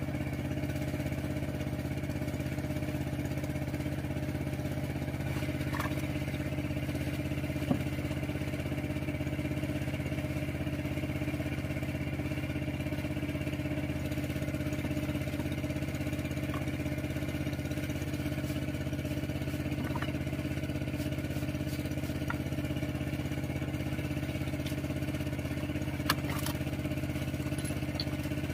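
Small engine running steadily at an even speed, with a couple of short knocks about a third of the way in and near the end.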